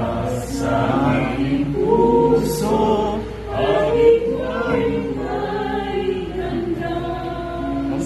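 Many voices singing a song together, like a choir.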